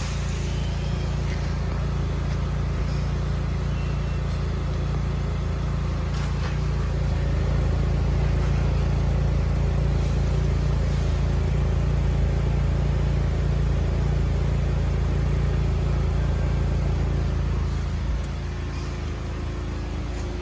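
2013 Buick LaCrosse's 2.4 L four-cylinder engine idling steadily, heard from near the exhaust outlet. It is louder in the middle, while close to the tailpipe, and eases off near the end.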